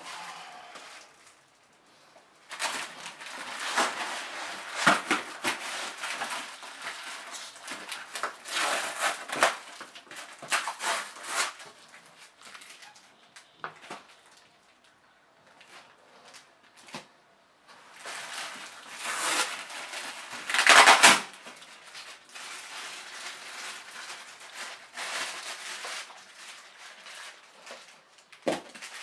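Packaging being handled: plastic wrap and papers rustling and crinkling in bursts, with a few short knocks against the cardboard box. The loudest crinkle comes about two-thirds of the way through.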